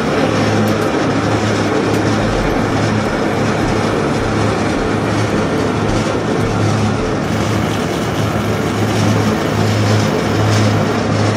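Industrial waste shredder with rotating toothed cutter discs running under load and grinding through mixed waste. A steady, loud grinding noise sits over a constant low hum, without pause.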